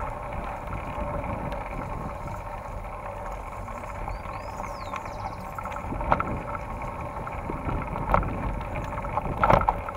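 Mountain bike riding over a dirt forest trail, heard from a camera on the bike or rider: a steady rumble of tyres and wind on the microphone, with the bike knocking and rattling over bumps a few times in the second half.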